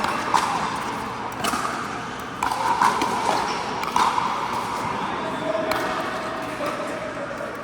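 Pickleball rally: paddles hitting the plastic ball with several sharp pops, roughly a second apart, in an indoor court, over background voices.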